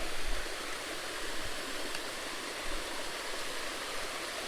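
Steady rushing of water from a small creek waterfall, with a brief low rumble in the first half second.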